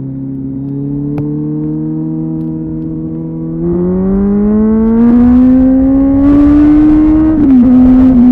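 Kawasaki ZZR 1400 inline-four sport bike engine, through a Delkevic aftermarket exhaust, pulling hard under acceleration. The revs drop with an upshift right at the start and then climb slowly. About three and a half seconds in the throttle opens wider, and the engine gets louder with the pitch rising faster. The revs dip briefly with another gear change near the end.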